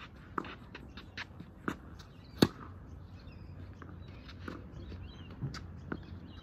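Tennis rally: racket strings striking the ball and the ball bouncing, heard as a string of sharp separate pops, the loudest about two and a half seconds in, with footsteps on the court between them.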